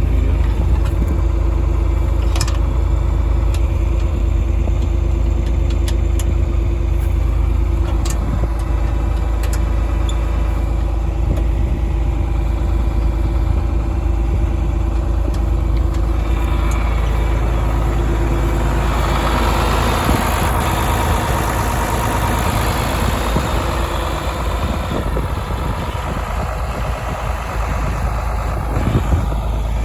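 Farm tractor's diesel engine running steadily at a low, even rumble. About two-thirds of the way through, a broad hiss rises in over the engine.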